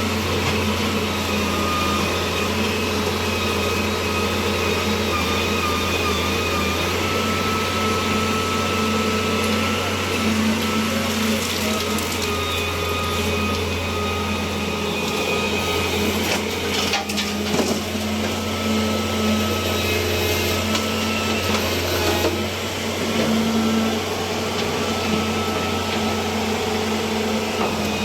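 Road cutting machine running steadily: a low engine hum with a thin high whine over it, and a couple of short clicks past the middle.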